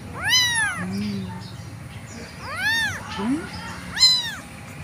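Very young tabby kitten meowing three times, each a high call that rises and falls in pitch, the last the loudest. These are an abandoned kitten's cries for its missing mother.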